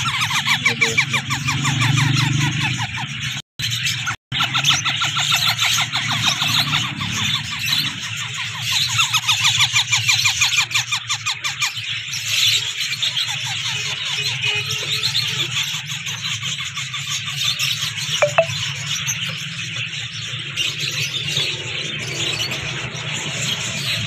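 Several ringneck parrot chicks making raspy, rapidly pulsed begging calls, layered over one another. There is a steady low hum underneath, and the sound cuts out twice briefly about three and a half and four seconds in.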